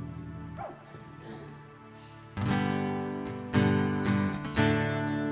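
Acoustic guitar strumming chords as the introduction to a worship song. The chords come in about two seconds in after a quiet stretch and are struck again twice.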